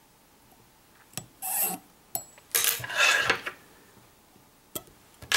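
Handling noise at a fly-tying bench: a few light clicks of small tools being picked up and set down, and two brief rubbing, rasping scrapes, the longer one about three seconds in.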